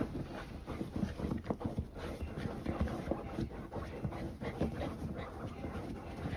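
A Shiba Inu digging and pawing at a padded fabric dog bed, making quick, irregular scratches and rustles, with the dog panting.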